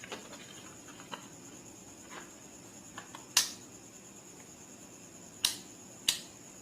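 A few sharp clicks and light taps from handling a digital multimeter and its test probes. The loudest comes about three and a half seconds in, with two more near the end.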